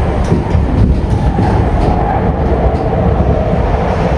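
A vehicle in motion: a steady loud rumble, with a steady whine coming in about a second and a half in.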